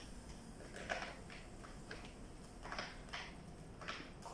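A few light, separate clicks and knocks of plastic parts being handled and fitted back into place, with the vacuum cleaner switched off.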